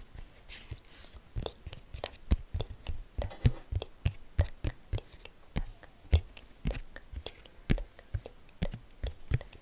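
Fingernails and fingertips tapping on a playing card held close to a microphone: irregular sharp taps, a few a second, each with a soft thud.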